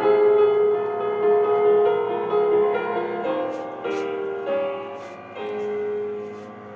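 Background music: a slow keyboard melody of held, piano-like notes, with a few faint short clicks over it in the second half.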